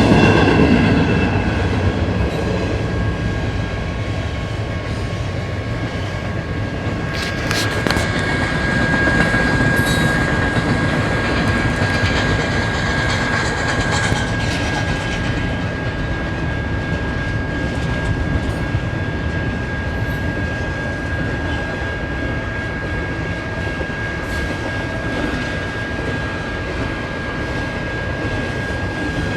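BNSF intermodal container train rolling past: a steady rumble of wheels on rail with a few sharp clacks, over a thin steady high-pitched whine.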